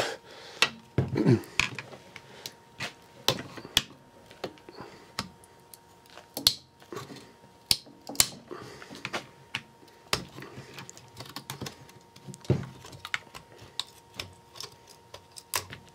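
Irregular light clicks and taps of small tools against the plastic housing and circuit board of a hand-dryer motor being opened up.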